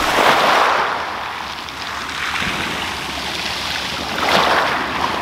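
Small waves breaking and washing up a shingle beach, swelling louder twice: once at the start and again about four seconds in.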